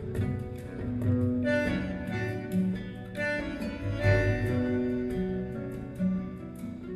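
Instrumental music with sustained string notes, played back through a Devialet Phantom wireless speaker.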